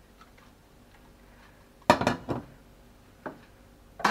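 Metal kitchen utensils clattering against cookware: a quick cluster of sharp clinks about two seconds in, a single lighter clink a little after three seconds, and another sharp clink at the end.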